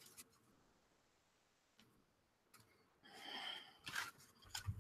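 Near silence for about three seconds, then a brief soft rustle and a few light clicks of tarot cards being handled as a card is drawn.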